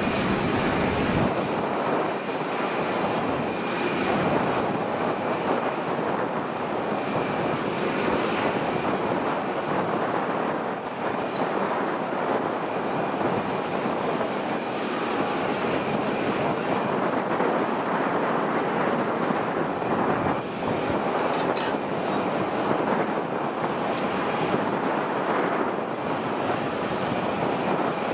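Airbus A319CJ's two IAE V2500 turbofan engines running with a steady roar and a high whine.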